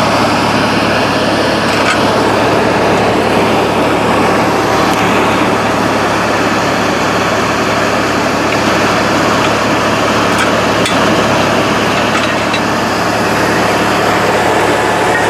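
An engine running steadily with a low hum, plus a few faint clicks.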